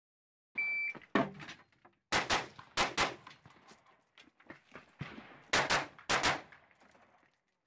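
Shot timer's start beep, then a semi-automatic AR-15-type rifle (Uronen Precision UR-15 with a three-chamber compensator) firing: one shot about a second in, then four quick pairs of shots, echoing under the covered range.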